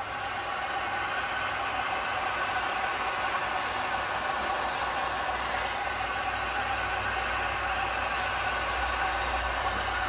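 Wagner Furno 550 heat gun running steadily, its fan blowing air with a steady whine.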